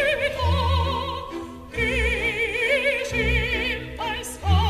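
Operatic singing: a high voice holding long notes with wide vibrato over low sustained orchestral accompaniment, with a short break in the phrase a little under two seconds in and a new, higher phrase starting near the end.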